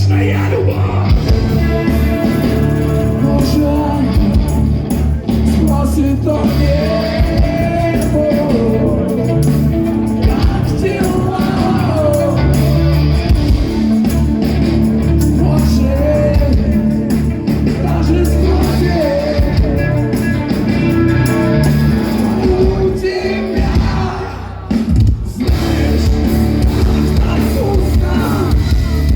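Rock band playing live with a singer: heavy drums and bass under a sung melody, which drops out briefly about five seconds before the end and then comes back in.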